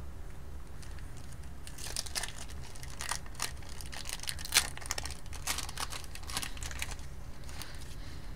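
Plastic foil wrapper of a hockey card pack being torn open and crinkled: a quick run of sharp crackles starting about two seconds in and dying away about seven seconds in, over a steady low hum.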